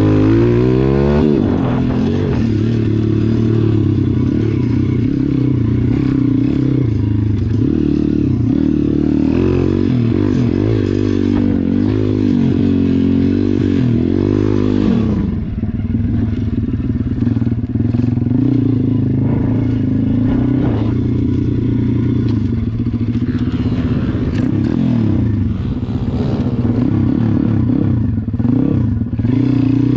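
Small single-cylinder four-stroke pitbike engine running hard, its pitch repeatedly climbing and then dropping as it revs up and backs off.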